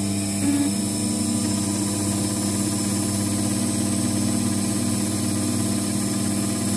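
Emco Compact 5 CNC lathe running its programmed turning cycle, the spindle motor and the axis drive motors giving a steady hum of several tones. One tone steps briefly about half a second in, and a short glide comes at the very end.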